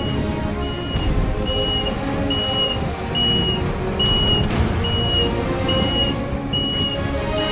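A vehicle's reversing alarm beeping steadily, one short high beep about every 0.8 seconds, over background music.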